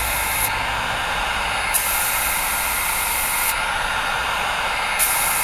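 Badger 250 airbrush hissing in on-off bursts as it sprays leather print colour: one burst ends about half a second in, another runs from about two to three and a half seconds, and a third starts near the end. Under it a hair dryer blows steadily.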